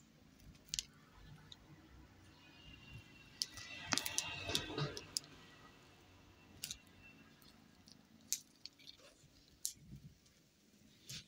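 Kitten playing with a wand toy made from a facial-hair removal spring: scattered sharp clicks and rustles as the wire spring and paws hit the quilted mattress, with a busier flurry of clicking and scrabbling about four seconds in.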